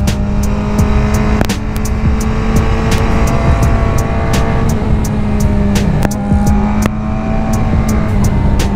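Motorcycle engine accelerating through the gears, its pitch rising, dropping at a shift about five seconds in, then rising again, with heavy wind rumble and frequent crackling clicks from the on-bike microphone.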